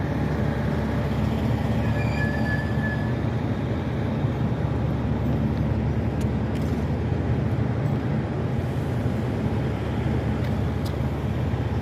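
Steady low rumble of an idling diesel truck engine, with a faint short high tone about two seconds in.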